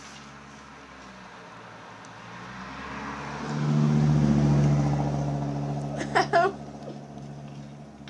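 A passing motor vehicle whose engine hum swells, peaks a few seconds in and then fades away. Two short, high, chirp-like sounds come just after the peak.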